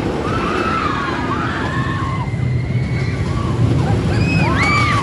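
Storm Chaser, a Rocky Mountain Construction hybrid roller coaster: a train rumbles steadily along the steel track while riders scream and yell over it again and again, the loudest scream coming near the end.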